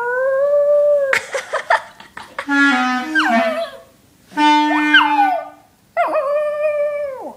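A small dog howling along with a clarinet. A long held howl opens, then the dog's howls slide up and down over short low clarinet notes, and a last howl drops away near the end.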